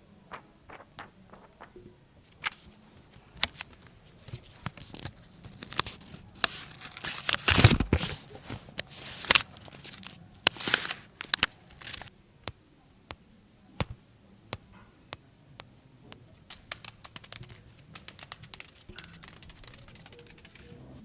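Close-miked foley crinkling and tearing: a run of sharp crackles that grows dense and loud in the middle, then thins out to scattered clicks.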